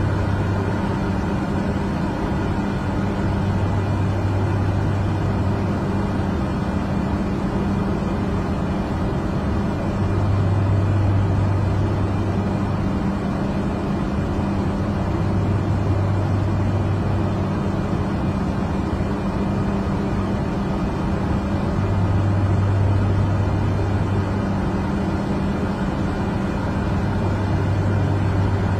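Aircraft cabin noise in flight: a steady rush of engines and airflow with a low drone that shifts between two pitches and swells and fades every few seconds.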